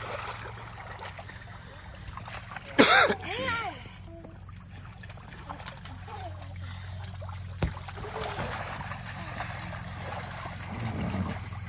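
Water splashing and sloshing as children play in an inflatable paddling pool, with a loud splash and a child's short shout about three seconds in, and scattered bits of children's voices.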